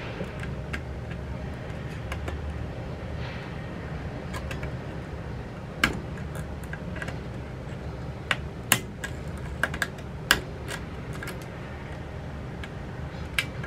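Small screwdriver clicking and scraping against the metal parts of a Mamiya 6 folding camera's leaf shutter, prying at the riveted top plate of its broken self-timer. It makes an irregular scatter of sharp little ticks, with a few louder clicks from about six seconds in.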